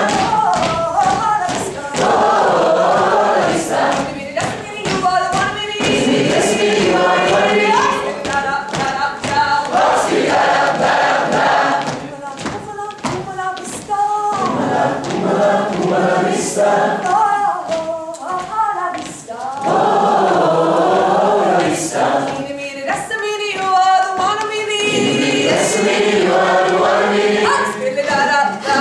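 A group of voices singing together in chorus, phrase after phrase with brief breaks, and sharp knocks now and then.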